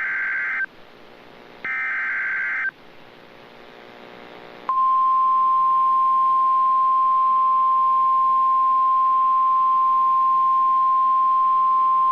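Emergency Alert System signal for a severe thunderstorm warning. The end of one short burst of screechy digital SAME header data, then another burst about a second later, each about a second long. About five seconds in, a long, loud, steady single-pitch attention tone starts and holds.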